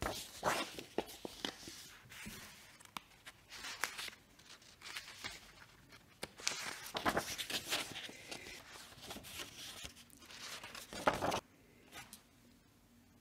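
Sheets of paper rustling as they are handled, unfolded and shuffled, in irregular crackles, the loudest about eleven seconds in, then quieter.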